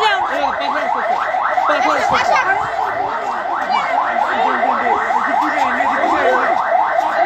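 A rapid electronic alarm tone: rising sweeps repeating about five times a second without a break, over excited voices.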